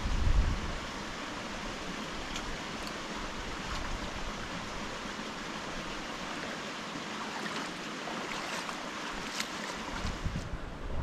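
Steady rush of flowing creek water, with wind buffeting the microphone about the first second and again near the end, and a few faint clicks.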